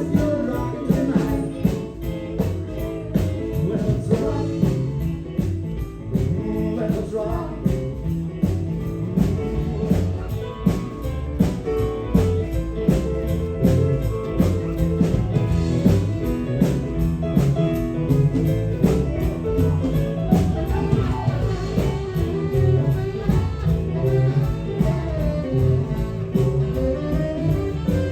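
A live rock 'n' roll band playing an instrumental passage with a steady beat.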